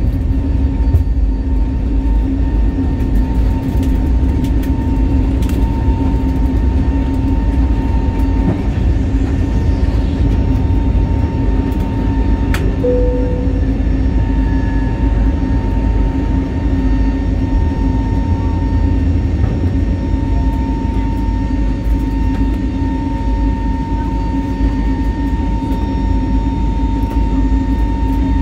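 Airbus A320neo cabin noise: a steady low rumble of the engines and airflow, with a constant hum over it. A brief click about halfway through.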